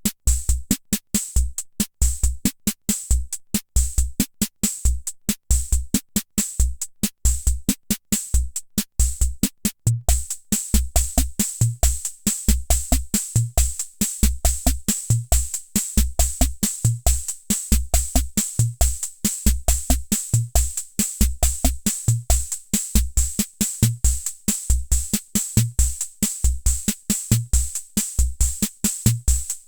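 Hammond Auto-Vari 64 analog rhythm machine playing a preset beat of bass-drum thumps and hissy hi-hat and cymbal ticks. About ten seconds in it changes to a busier pattern, with denser cymbal and an added low drum tone.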